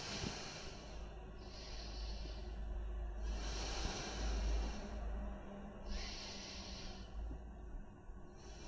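A woman's slow, deep breathing, with about three breaths in and out, each in-breath and out-breath lasting about a second, over a low steady hum.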